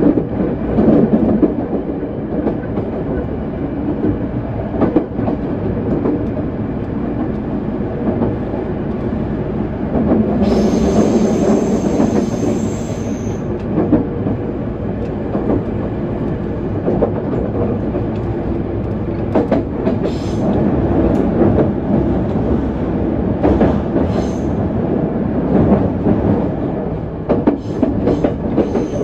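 JR West 207 series electric train running along the line: a steady rumble from the running gear, with pairs of wheel clicks over rail joints every few seconds. About ten seconds in, a high-pitched squeal lasts about three seconds.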